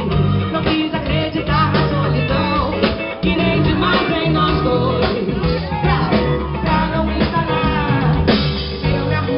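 Live band playing, with drum kit and electric guitar under a woman singing lead into a microphone.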